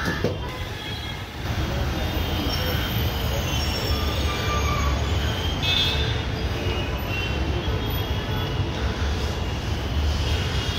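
Steady low rumble of outdoor background noise, with faint short high squeaks scattered through it.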